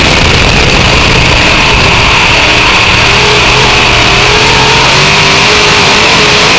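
A dirt-track race car's V8 engine running at speed, heard very loud from inside the open cockpit, its pitch rising and falling slightly with the throttle.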